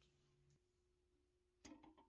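Near silence with a faint low hum that stops about a quarter of the way in. Near the end come a few light clicks as hands handle the pressed-steel toy truck body and bed.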